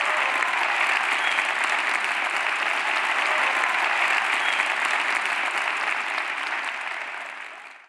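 Audience applauding: steady, dense clapping that fades away near the end.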